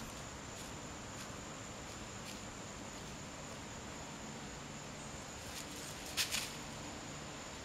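Dry leaf litter rustling and crunching under a dog's paws as it roots for a mole, with a sharper double crunch about six seconds in as it pounces. A steady high insect drone runs underneath.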